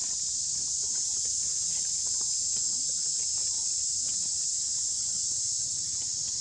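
Steady, high-pitched insect chorus: a continuous buzz with no break or change in pitch.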